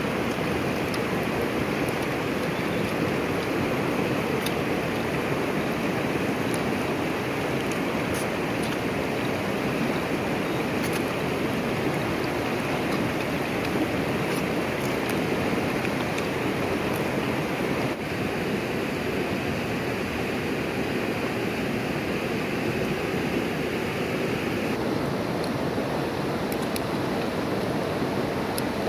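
Shallow river rushing steadily over rocks and small rapids.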